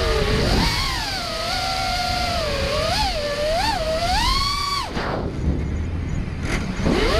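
Brushless motors (Emax 2306 2400kv on a 4S racing quadcopter, with Emax Avan R props) whining, their pitch rising and falling with the throttle: two quick blips, a climb to a high pitch, then the whine cuts off suddenly about five seconds in as the throttle is chopped, before rising again near the end. Wind rushes over the on-board camera's microphone.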